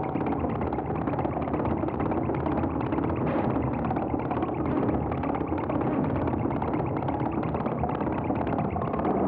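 Experimental electronic film soundtrack: a dense, noisy, machine-like drone pulsing fast and evenly, with a low steady tone coming in near the end.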